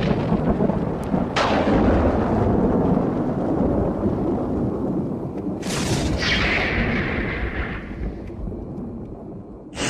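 Thunder: a steady deep rumble broken by a sudden crack about a second and a half in and a sharper, louder crack past the middle. Each crack is followed by rolling rumble, which fades toward the end.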